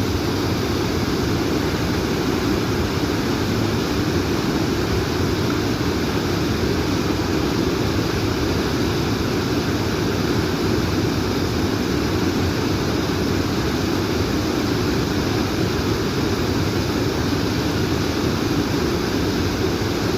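Steady, unbroken rushing of water, deep and full, with a fainter hiss above it and no swells or breaks.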